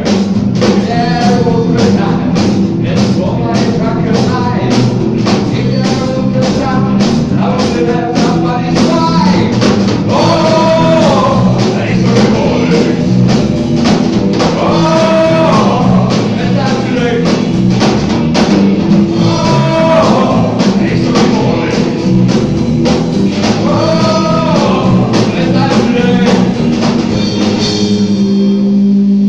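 Live rock band playing: a male lead vocal over electric guitar, bass guitar and drum kit. About a second before the end the drums and cymbals stop and a single chord is held.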